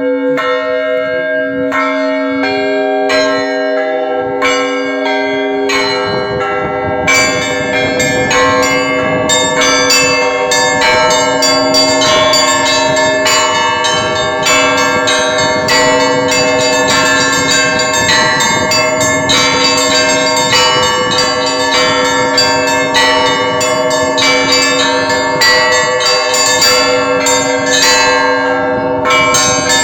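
Orthodox monastery bells rung by hand: a low bell tone hangs steady underneath while several bells are struck in a quick, even rhythm. The ringing grows busier and denser about six seconds in.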